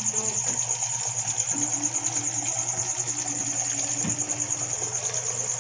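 Small aquarium's pump or filter running with a steady low hum and water churning at the surface, under a continuous high-pitched rapidly pulsing trill.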